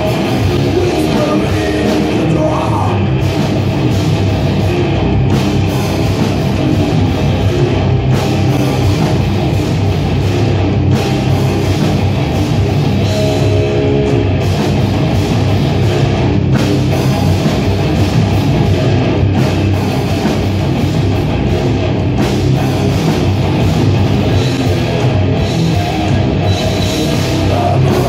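Heavy metal band playing live at full volume, with distorted electric guitars and a drum kit, heard from among the audience.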